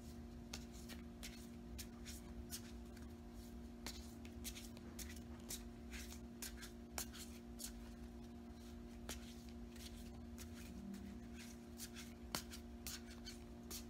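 Tarot cards shuffled by hand: an irregular string of short, soft clicks and slaps, over a steady low hum.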